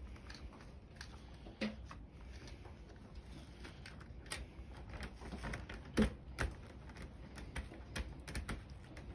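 Light plastic clicks and taps of a model railway coach being fitted onto the track by hand, with sharper clicks about a second and a half in and about six seconds in, and a run of small clicks near the end.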